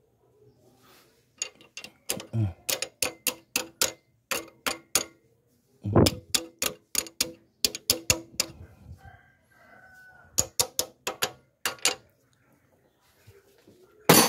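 Rapid, evenly spaced sharp metallic taps, about four a second, in three runs with short pauses between them, then one louder strike near the end: a tool striking metal while working on an open engine.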